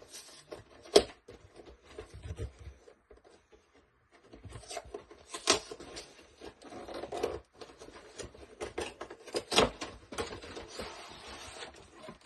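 Cardboard collection box being opened by hand: a few sharp clicks and knocks from the lid and inserts, with rubbing and rustling of cardboard and plastic packaging and a longer rustle near the end.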